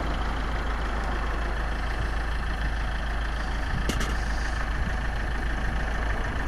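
Iveco crew-cab truck's diesel engine idling steadily, with a brief click about four seconds in.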